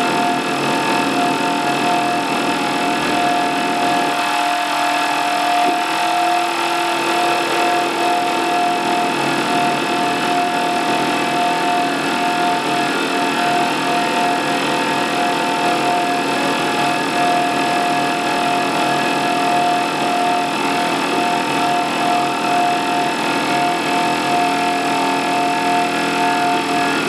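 Experimental electroacoustic music from live electronics with prepared zither: a dense, steady drone of held tones over a noisy hiss. A lower tone comes in about five seconds in, and the low part of the texture shifts near the end.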